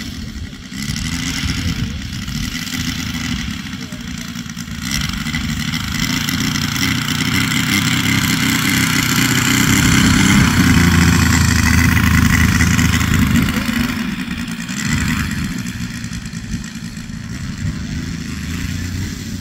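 Rascal model airplane's engine running as the plane taxis on grass with its propeller turning. It grows louder as the plane comes close, loudest about halfway through, then eases off as it moves away.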